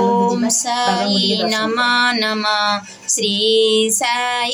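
A woman's voice singing a devotional song in long, drawn-out notes, with a short break about three seconds in.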